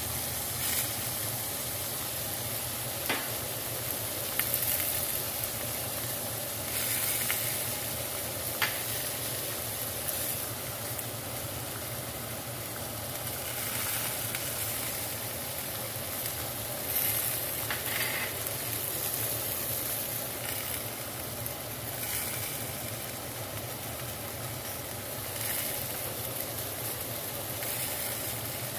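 Pork chops, potatoes and olives sizzling in a hot cast-iron skillet, a steady frying hiss that swells now and then, with a few light clicks.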